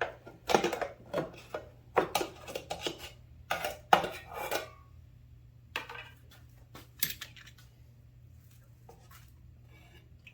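Metal clanking and clinking as the wire dip basket of a carburetor-cleaner can is handled: a run of sharp knocks over about seven seconds, then it stops.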